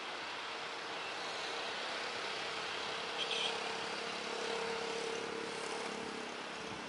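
Cars and motorcycles passing close by, a steady traffic noise with one vehicle's engine tone swelling and fading, over the distant hum of a taxiing Airbus A320 airliner's jet engines. A brief, sharper sound stands out about three seconds in.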